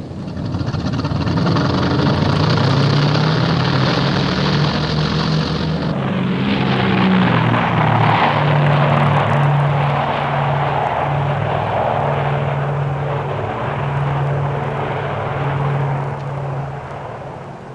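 Twin radial piston engines of a Grumman CS2F Tracker anti-submarine aircraft, with propellers, running steadily at high power. The sound changes character about six seconds in.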